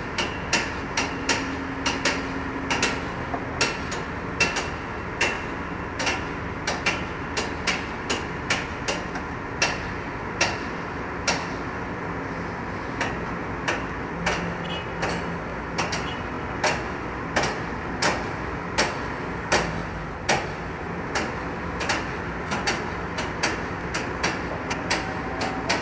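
Repeated hammer-like knocks, about two a second at an uneven pace with a few short pauses, over the steady running of the excavators' engines on a construction site.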